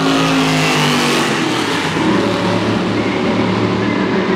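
Exhaust of a 6,200 cc V8 stock race car passing at speed: the engine note falls in pitch as it goes by about a second in, then carries on lower and steadier.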